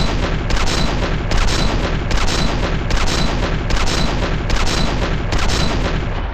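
Heavy machine-gun fire sound effect standing for an M2 Browning .50-calibre firing: one long, continuous, loud burst at an even rate.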